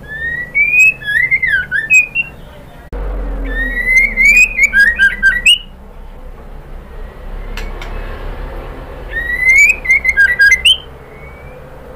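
White-rumped shama whistling three short phrases a few seconds apart, each opening with rising whistles and breaking into quick sharp notes; billed as a female calling to a male.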